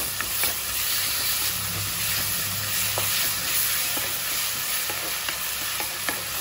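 Sliced onions and ginger-garlic paste sizzling in hot oil in a frying pan as they are sautéed, with a spatula stirring and lightly scraping the pan now and then.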